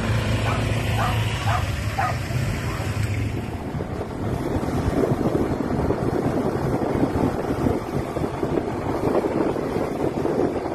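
Wind buffeting the microphone of a vehicle moving along a road, growing rough and dense from about four seconds in. Over a low steady hum, several short barks sound in the first two seconds.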